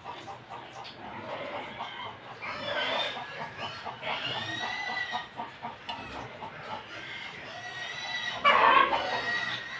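Chickens clucking repeatedly, with longer drawn-out calls about three seconds in and a loud call near the end.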